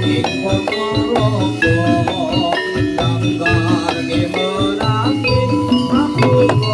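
Javanese gamelan music accompanying a Jathilan dance: metallophones strike a busy, ringing melody over steady low drum beats.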